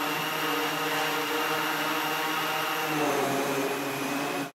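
Electric propellers of a large quadrotor and a smaller quadrotor hovering, giving a steady buzzing hum. Its pitch shifts about three seconds in, and the sound cuts off abruptly near the end.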